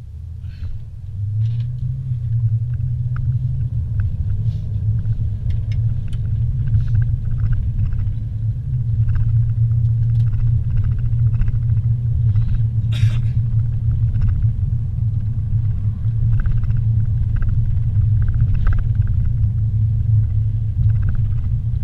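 Car engine and road noise heard inside the cabin: a steady low rumble that builds over the first couple of seconds as the car pulls away, then holds. Faint clicks run through it, with a brief louder noise about 13 seconds in.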